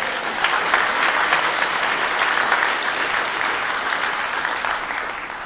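Audience applauding, steady and then dying away near the end.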